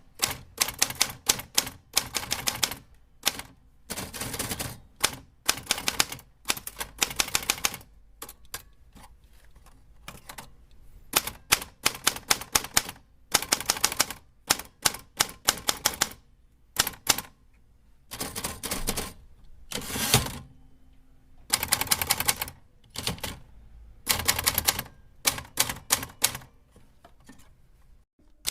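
Mechanical typewriter being typed on: rapid keystroke clatter in bursts separated by short pauses, with a heavier clunk about twenty seconds in.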